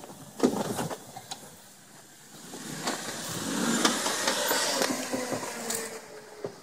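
Jeep Wrangler JK engine working under load as it crawls over deep dirt ruts: a few knocks in the first second, then the engine rising about two and a half seconds in and easing off near the end.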